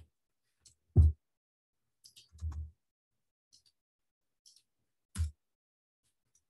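A few scattered computer-keyboard keystrokes and clicks, with near silence between them. The loudest is a single knock about a second in, and another comes about five seconds in.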